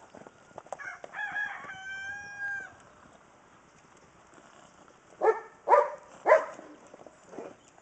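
A rooster crows once about a second in, a call that climbs and then holds a long steady note. Toward the end, three short, loud barks come about half a second apart, the loudest sounds here.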